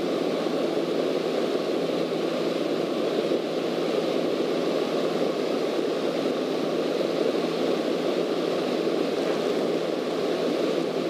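Single-engine Cessna's piston engine and propeller running steadily in flight, heard from inside the cockpit as an even drone mixed with wind noise.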